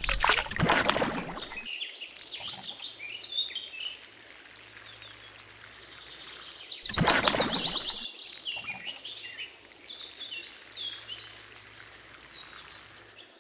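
Water pouring from a small watering can in two short splashy runs, one at the start and one about seven seconds in. Birds chirp throughout.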